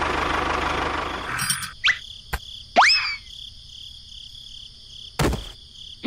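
A motor-like engine noise runs and then cuts off abruptly under two seconds in. After it, a faint cricket-like chirring continues under several quick rising whistles, a sharp click and, about five seconds in, a thump.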